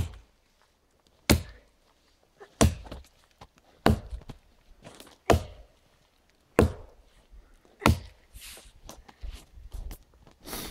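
Fiskars axe chopping into a thin standing tree trunk: seven sharp blows at a steady pace of about one every 1.3 seconds, followed by softer crunching near the end.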